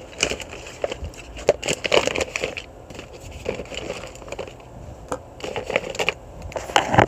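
Small plastic paint bottles clattering and knocking together as a hand rummages through a clear plastic storage tub, in irregular bursts of clicks and rattles.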